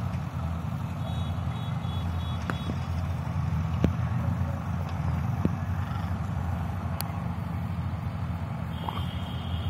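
A steady low engine hum, as of a motor vehicle running nearby, with a few sharp clicks. A thin high tone sounds briefly twice, about a second in and again near the end.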